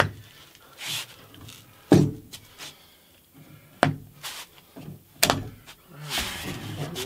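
Steel base of a Harbor Freight drywall lift being shifted about on a floor: four sharp metal clanks a second or two apart, with scraping and rolling noise between them.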